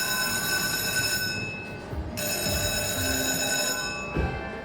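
Lightning Link slot machine sound effect: a bright electronic ringing tone with many high overtones, which fades out about a second in and sounds again for about two seconds before stopping.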